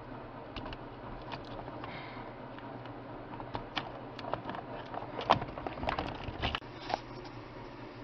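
Hard plastic clicks and knocks of an ignition switch wiring-harness connector and its side plug-in pieces being handled, scattered irregularly, with the loudest click about five seconds in.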